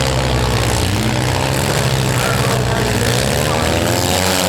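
Several four- and six-cylinder demolition derby cars running together, their engines revving and easing off, with the pitch rising and falling.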